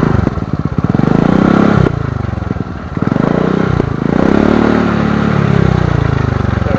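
Suzuki Burgman Street 125 scooter's single-cylinder four-stroke engine revved through an aftermarket VMAX power pipe exhaust. It rises and falls about three times, the last rev the longest. The note is mild and quiet for an aftermarket pipe, not loud.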